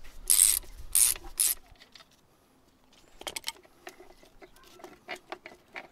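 Three short rasping bursts of a ratchet turning the hollow socket on a front strut's top nut. From about three seconds in, scattered light metal clicks and knocks as the strut top mount is worked loose.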